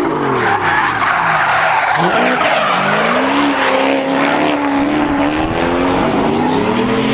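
Drift cars sliding in tandem, their engines revving hard, pitch swinging up and down as the throttle is worked, over the loud screech and hiss of spinning tyres. The revs climb about two seconds in and stay high, wavering.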